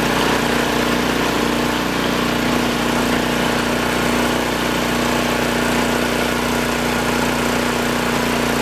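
Honda-clone single-cylinder engine of a garden tractor running steadily under load, driving the snowblower attachment as it throws snow from the chute. The engine note holds level, with no changes in speed.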